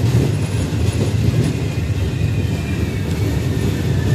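MD (Medie Distanze) regional passenger coaches rolling along the platform on arrival, with a steady low rumble of wheels on rail. A faint high brake squeal comes in during the second half.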